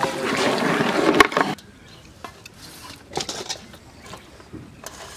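Metal ladle stirring a large pot of simmering chicken curry, the liquid sloshing, with a sharp clank against the pot about a second in. After about a second and a half this stops abruptly, leaving a few faint clinks of a ladle serving onto a steel plate.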